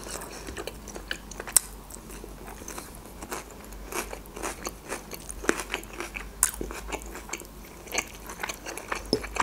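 A person chewing grilled chicken with the mouth closed: irregular soft clicks, smacks and small crunches.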